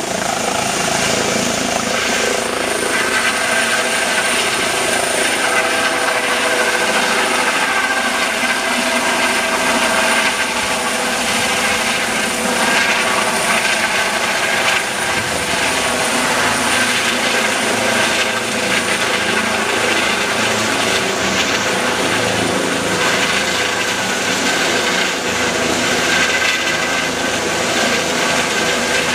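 Eurocopter EC135 trauma helicopter lifting off and climbing away: steady turbine whine and rotor noise, the whine holding several high tones over a rushing noise.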